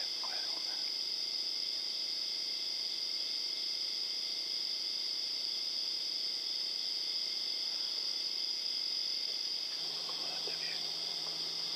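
Steady high-pitched nighttime insect chorus of crickets, continuous throughout. A few faint short noises come through near the start and again about ten seconds in.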